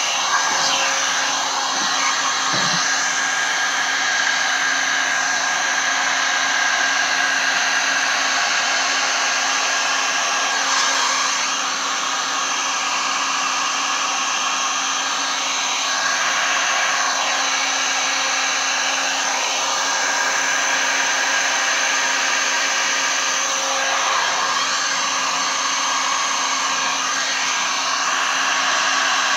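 Heat gun with a flat spreader nozzle blowing hot air across wet poured epoxy resin: a steady rush of air with a constant motor hum.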